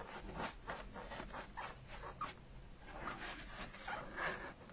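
A small tool rubbing and scratching at the felt covering a polystyrene foam pumpkin, as felt edges are pushed into the cut grooves: a quick, irregular run of short scratchy strokes.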